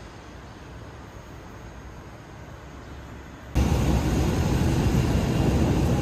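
A quiet, steady background hum that cuts abruptly about three and a half seconds in to the loud, steady running rumble of a moving Bernese Oberland Railway train, heard from inside the carriage.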